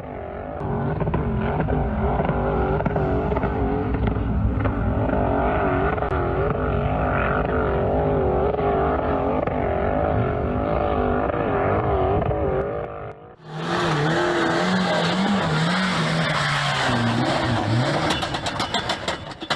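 Off-road vehicle engines revving unevenly under load, in two separate recordings. The first, thinner-sounding one wavers up and down in pitch. About 13 seconds in it cuts abruptly to a second engine that runs lower and rises and falls in pitch.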